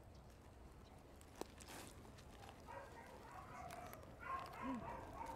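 Small dogs whining faintly in short high calls, more of them in the second half, with a single click about a second and a half in.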